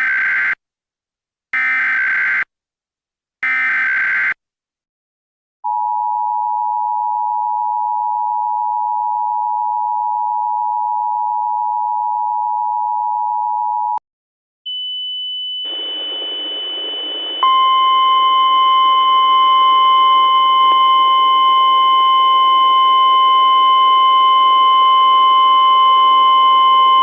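Emergency Alert System tones: three short bursts of warbling SAME header data, then the EAS two-tone attention signal held for about eight seconds. After a brief break comes a steady high tone over radio hiss, and a few seconds later a single steady NOAA Weather Radio warning alarm tone joins it.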